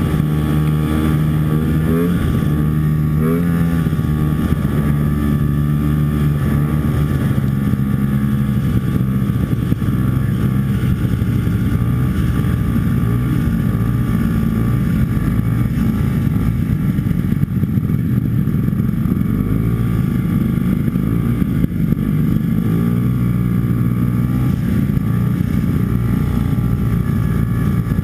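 Antique snowmobile's two-stroke engine running under way, its pitch rising and falling with the throttle in the first few seconds, then holding fairly steady.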